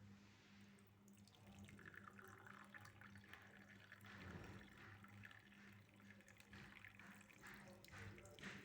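Faint sound of water, with a light noisy wash and many small ticks and drips, starting about a second in, over a steady low hum.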